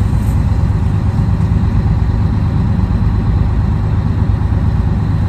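Scania 113 truck's 11-litre straight-six diesel engine running steadily, a constant low rumble heard from inside the cab.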